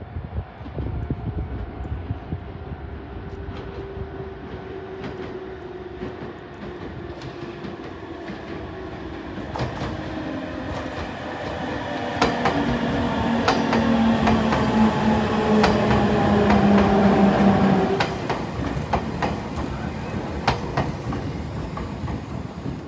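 Electric train passing close by. Wheels click over the rail joints, and a motor whine slides down in pitch. The sound builds to its loudest, then drops away sharply a few seconds before the end.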